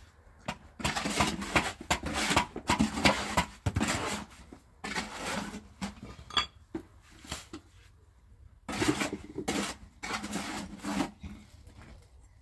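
Clattering and scraping, like metal utensils or tools, in three bursts of a few seconds each.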